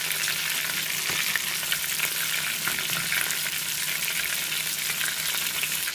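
Whole fish frying in hot oil in a pan: a steady sizzle with many small pops and crackles of spattering oil.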